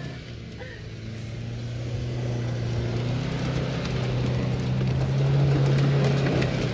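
Isuzu V-Cross pickup's diesel engine pulling steadily over rough ground. It grows louder through the middle and eases off near the end.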